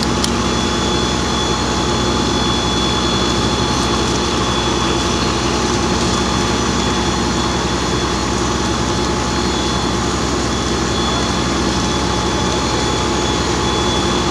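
Fire engine's motor and water pump running steadily to supply the hose streams, a constant heavy drone with a thin high whine over it.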